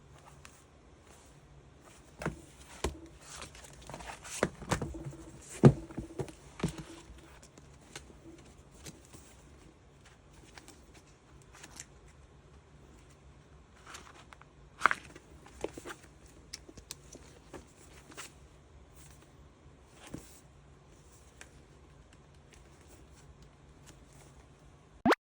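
Scattered light clicks, taps and soft rustles from objects being handled, with a cluster of sharper knocks a few seconds in and another about halfway through, over a faint low room hum.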